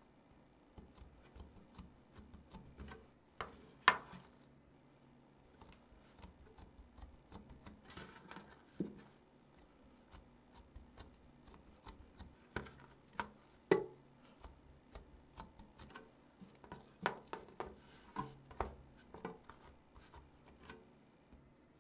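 Hands pressing and knuckling down soft bread dough in a clear container: quiet squishing and rubbing, with scattered light knocks and taps as fingers and the container's edge bump, the sharpest about 4 s and 14 s in.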